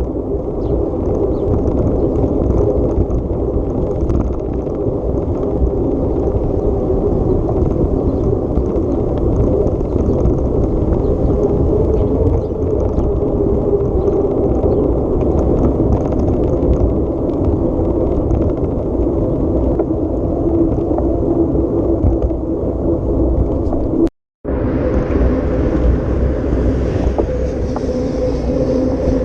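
Off-road vehicle engine running steadily under load, with a low rumble and a held engine tone. About 24 seconds in the sound cuts out for a moment, then the engine carries on with more hiss of wind or tyres on top.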